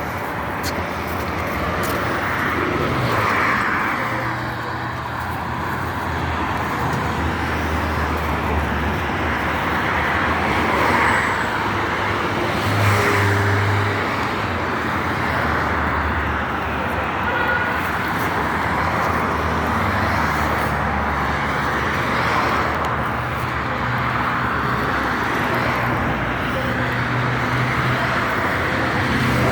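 Steady road traffic: the continuous noise of vehicles on the road, with engine hum from passing cars rising and fading.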